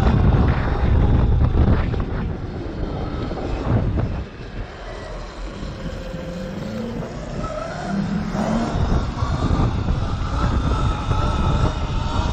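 Electric dirt bike riding along, wind rumbling on the microphone over the thin whine of the electric motor. The rumble drops as the bike slows about four seconds in, then the motor whine rises in pitch as it accelerates away and the wind grows loud again.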